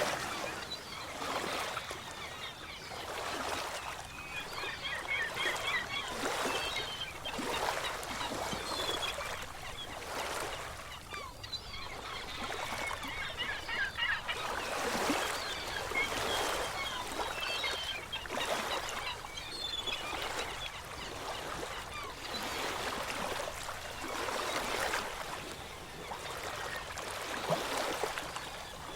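Waves washing in and out in repeated swells, with short bird calls now and then over them.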